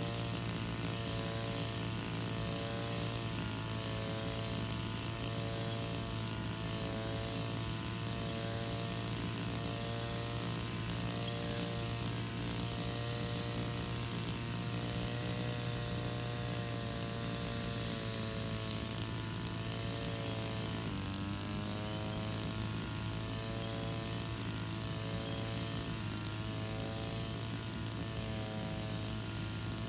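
Engine-driven brush cutter running steadily while cutting grass, its note wavering slightly as it is swept, and dropping in pitch about twenty seconds in before picking up again.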